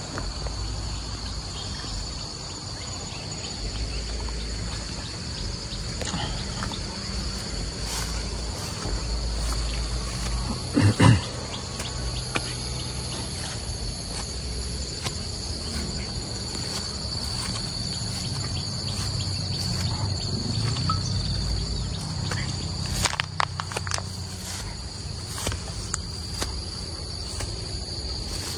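Steady, shrill chorus of insects such as crickets or cicadas, over a low rumble. A brief loud voice-like sound comes about eleven seconds in, and a few sharp clicks come near the three-quarter mark.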